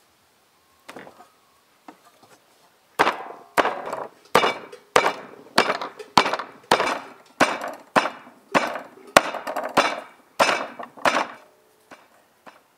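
A steady series of about fourteen sharp knocks, roughly two a second, each with a short ring. They start about three seconds in and stop near the end, like repeated hammer blows.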